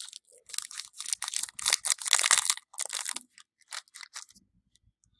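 Baseball trading cards being slid and flipped by hand through a pack: a quick run of dry rustling and scraping strokes, densest in the middle and dying away after about three seconds.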